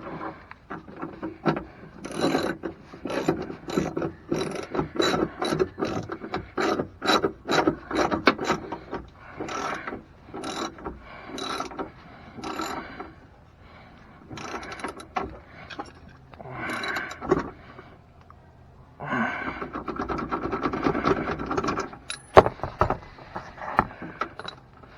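Hand ratchet wrench clicking in runs of short back-and-forth strokes as bolts are turned, with a few short pauses between runs.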